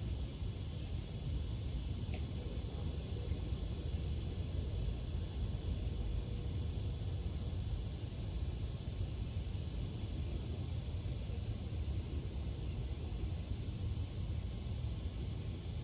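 Steady high-pitched insect trilling, like a cricket chorus, over a low steady rumble.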